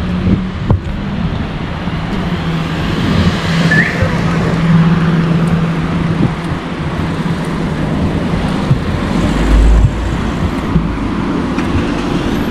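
Street traffic: cars driving past, engines and tyres on the road, with a steady engine hum through the first half and a brief deep rumble about ten seconds in.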